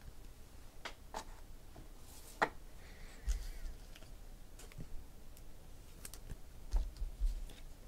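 Trading cards being handled: a few faint, scattered clicks and taps of card stock.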